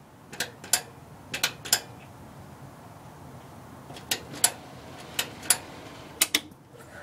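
Switches being worked, sharp mechanical clicks coming mostly in pairs about a third of a second apart, about five pairs in all. In the second half they come from the floor-mounted high/low beam dimmer switch being stepped on.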